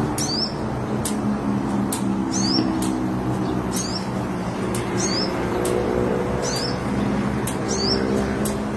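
Sogon bird giving a short high chirp that dips and then rises, repeated about every second and a half, with sharp clicks in between. Underneath, and louder, runs a low hum whose tones slowly shift.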